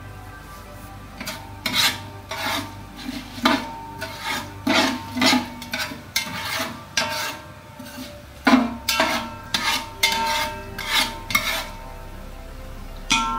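Steel spoon scraping and knocking around the inside of a large aluminium pot, stirring whole spices in oil: quick strokes about two a second with a metallic ring. The stirring stops, and near the end a single clang rings out.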